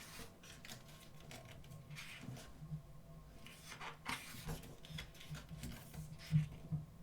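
Soft rustles and swishes of glossy photobook pages being turned and handled, coming in several short bursts, over a faint steady low hum.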